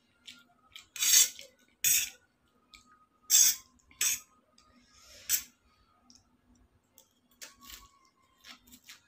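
A metal fork scraping and clinking against a stainless steel plate of chow mein, about five sharp strokes in the first five or six seconds. It is followed by softer, smaller mouth sounds of eating noodles near the end.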